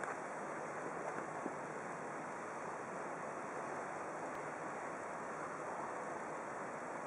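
Steady, even ambient background noise with no distinct events, and a faint tick about a second and a half in.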